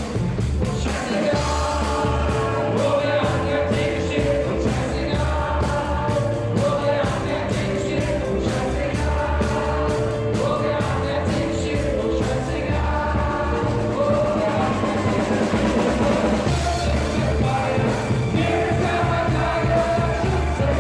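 A live band playing rock/pop music with a steady drum beat and bass, recorded on a phone from the stage, so the sound is thin and of poor quality.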